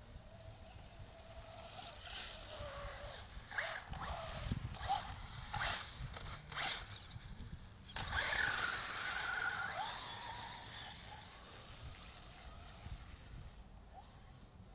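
Radio-controlled truck driving on ice, its motor whining and changing pitch, with a run of sharp clicks and knocks in the middle. It is loudest as it passes close, starting suddenly about eight seconds in, then fades as it drives away.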